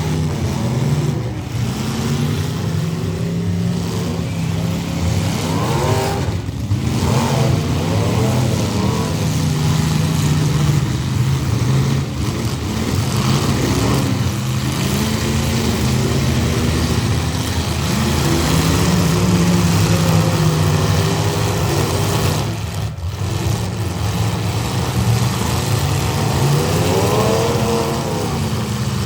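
Engines of full-size demolition derby cars revving up and down, their pitch rising and falling repeatedly over a steady din.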